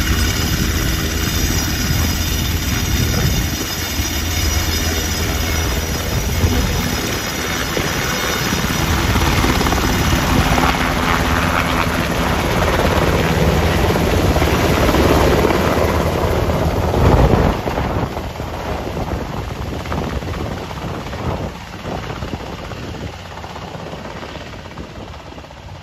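Sikorsky S-70 Black Hawk helicopter taking off and flying away: turbine whine over the beat of the rotor, loud at first, then fading over the last several seconds as it climbs off.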